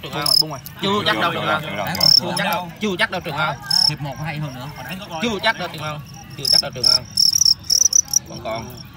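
Male fighting crickets chirping: a few short chirps at first, then a quick run of repeated chirps near the end.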